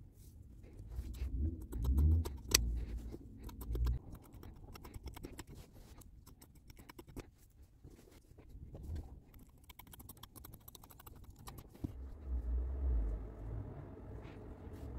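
Towel fabric and sheet material rustling and crinkling as they are handled and spread flat on a table, with dull low thumps of handling against the tabletop.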